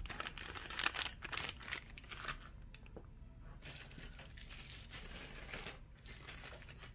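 Clear plastic toy bags crinkling as they are handled and set down. The crinkling is busiest in the first few seconds, then fades to a faint rustle.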